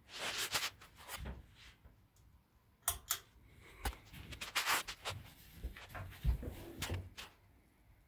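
Irregular clicks, knocks and rustling close to the microphone, with a few sharp clicks about three and four seconds in.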